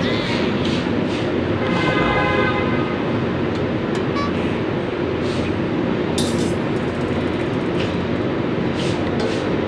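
Steady traffic noise, with a horn sounding for about a second, two seconds in, and a few short clicks.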